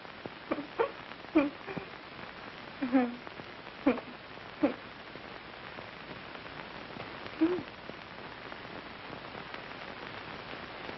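Steady hiss of an old film soundtrack. Over it come a string of brief, indistinct voice sounds in the first five seconds and one more about seven and a half seconds in.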